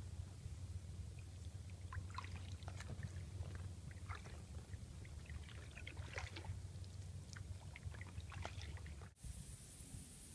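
Canoe paddle strokes in still swamp water: faint scattered drips and small splashes off the blade over a low steady rumble, breaking off about nine seconds in.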